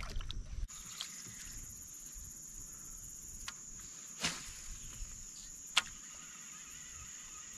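Steady, high-pitched chorus of insects, starting after a low wind rumble cuts off about half a second in. A few short clicks and a knock sound over it, the sharpest one near the end.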